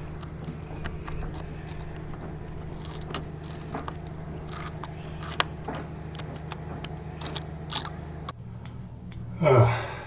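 Scattered metal clicks and scrapes of a hand tool working at a fitting seized by rust, which just turns without coming off, over a steady low hum that stops about eight seconds in. A grunt that falls in pitch comes near the end.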